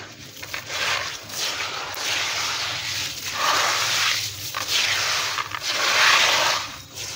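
Soft crumbly stone crushed by hand and crumbling into a basin of water: a gritty, crunchy hiss that comes in about five swells, each a second or so long.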